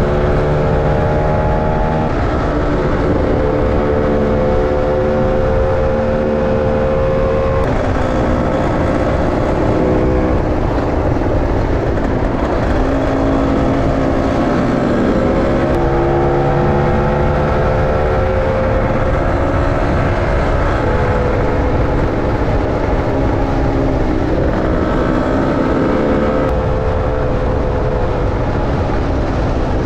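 Lambretta scooter's two-stroke engine running under way, its pitch climbing and dropping several times with the throttle, over a steady rush of wind and road noise.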